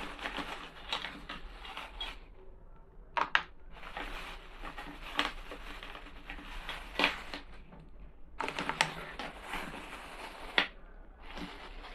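Plastic letter-shaped cutters clicking and tapping on a plastic cutting board as they are handled and pressed through thin melon slices. Soft rustling handling with a few sharper clicks scattered through, busier near the end.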